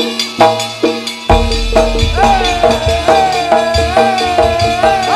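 Live Javanese traditional ensemble music played loud through a sound system: evenly spaced struck percussion strokes with a sliding, wavering melody line above them, and a deep low drum or bass part coming in about a second in.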